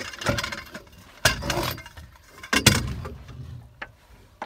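Fishing gear knocking and clinking against the fittings of a small fishing boat as the net is fetched for a hooked fish: a handful of sharp knocks, two of them loud.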